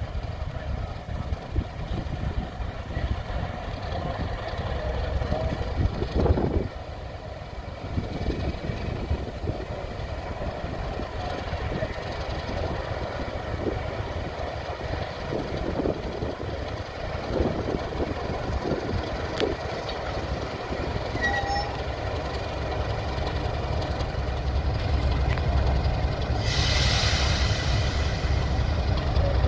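Class 31 diesel locomotive 31601 moving slowly light engine, its English Electric diesel engine giving a steady low rumble, with occasional knocks and faint squeals from the wheels on the track. Near the end a loud hiss lasts about a second and a half.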